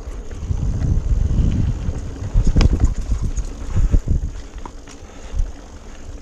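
Mountain bike riding down a rough, rocky trail: wind buffets the microphone while the bike rattles over rocks and roots, with a couple of sharp knocks near the middle.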